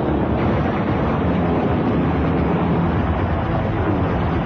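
Steady, dense rumble of flying attack craft, a cartoon battle sound effect.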